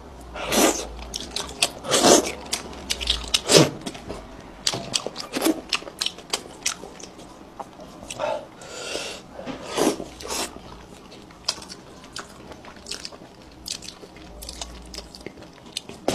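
Close-miked eating: chewing and biting on fish, with many short sharp crunches and clicks and a few longer wet mouth noises.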